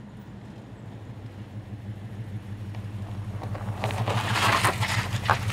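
Early-1970s Chevrolet pickup's engine rumbling at low speed, growing louder as the truck approaches. From about three and a half seconds in, its tyres crunch and crackle over gravel as it rolls in close.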